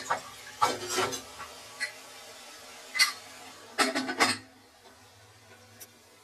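Aluminium pressure cooker being covered: scattered metal clinks, then the lid set on and closed with a quick cluster of clanks about four seconds in, followed by a quieter low hum.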